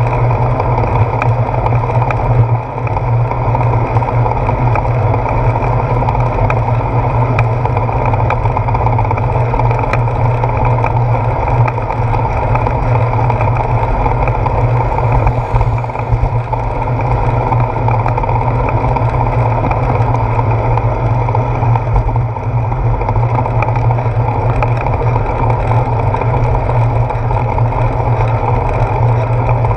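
Steady rumble of riding noise picked up by a handlebar-mounted GoPro on a bicycle rolling over a wet road, wind and road vibration with scattered small knocks from the bumps.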